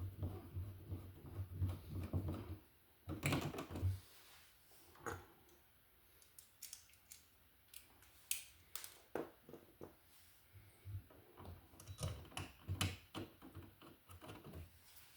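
Scattered light clicks and taps of hand work on a wall receptacle and its box, with rustling handling noise in the first few seconds.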